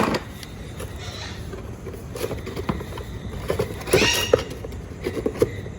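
Hand tools and parts being packed away: scattered light knocks and clinks, with a short high-pitched squeal about four seconds in.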